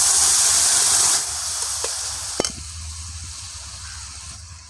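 Boiled dal poured into a hot kadai of fried egg and spices, sizzling loudly for about the first second and then settling to a softer, fading hiss. A single knock sounds about two and a half seconds in.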